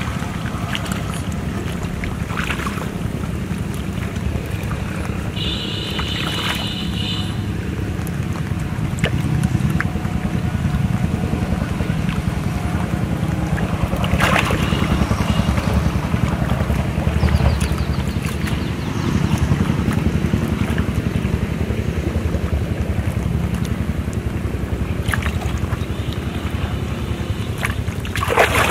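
Steady low wind rumble on the microphone, with a few short splashes of a hooked fish thrashing at the water's surface.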